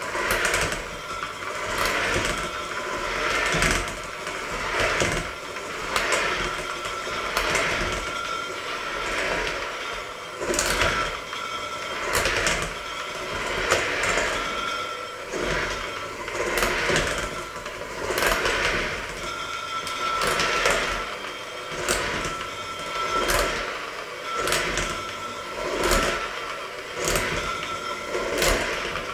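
Electric hand mixer running with its beaters in a stainless steel bowl of dough: a steady motor whine with a rhythmic swell about once a second as the beaters work the dough.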